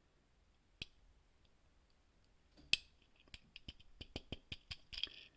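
Faint sharp clicks of a fingernail picking at the hood of a 1/64-scale diecast toy Jeep, trying to pry it open. There is one click about a second in, a louder one near the middle, then a quick run of light clicks.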